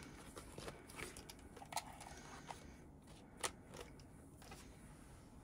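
Faint scattered clicks and light rustles of photocards and plastic binder sleeves being handled, with one sharper tap about three and a half seconds in.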